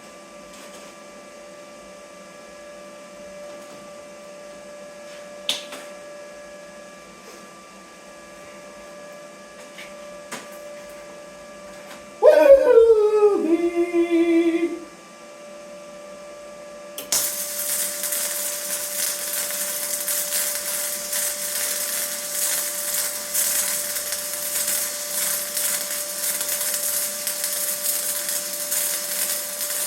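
Flux-core wire-feed welder arc welding steel, a continuous crackling hiss that starts abruptly about halfway through. Before it comes a loud, short pitched sound that falls in pitch, holds a steady tone briefly and then stops, over a low steady hum.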